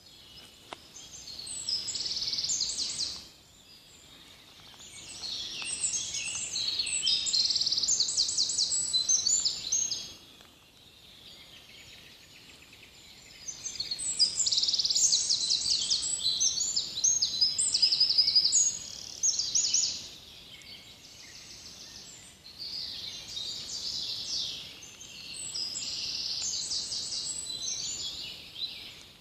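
Songbirds singing in woodland: bursts of rapid, high-pitched song lasting several seconds each, with short pauses between, over a faint steady background hiss.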